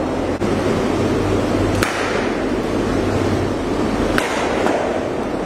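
Cricket bat striking a thrown ball twice, sharp cracks about two and a half seconds apart, over a steady loud background noise.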